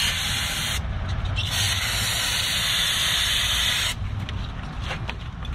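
Aerosol brake cleaner spraying onto the inner face of a brake rotor: a short burst, a pause about a second in, then a longer burst of about two and a half seconds.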